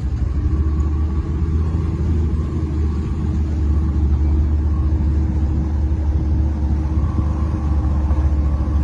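Small boat's motor running steadily under way: a continuous low rumble with a held hum.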